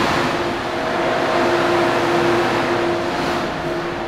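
Train noise: a steady rush with a low electrical hum, fading away near the end.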